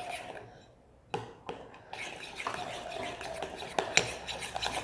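A utensil stirring thick, sticky slime in a bowl, with scraping and repeated clicks against the bowl's side. The glue mixture is starting to thicken as the borax activator takes effect.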